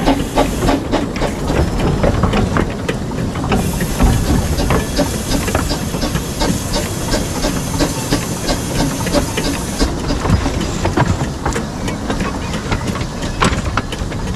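Small 15-inch gauge steam locomotive, built by the Exmoor Steam Railway, running with its train, heard from the carriage just behind it: a continuous run of sharp clicks from the wheels and running gear. A steady hiss of steam joins in from about three and a half seconds in until about ten seconds.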